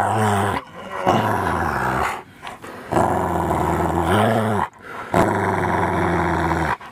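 Rottweiler growling during rough play, in about four long, low growls with short breaks between them.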